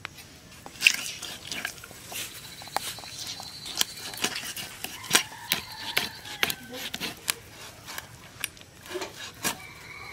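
A raw chicken being cut apart on a large upright blade: irregular sharp clicks and knocks as the blade cuts through skin and joints and taps the steel plates, the loudest about a second in.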